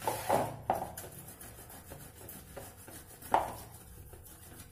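Boiled potato being grated on a steel box grater: a few short, soft scraping strokes, the loudest about three and a half seconds in, with faint rubbing between.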